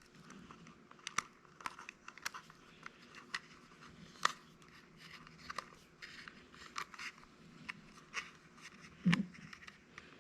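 Small, irregular clicks and scrapes from hands working the wires off an old 9V battery snap connector, with a sharper click about four seconds in and another about nine seconds in.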